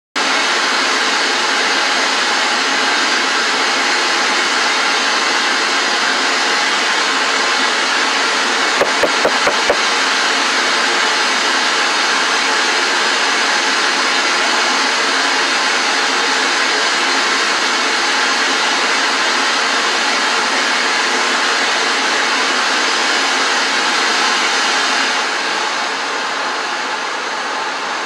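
A quick run of five knocks on a door, about nine seconds in, over a steady loud hiss that drops a little near the end.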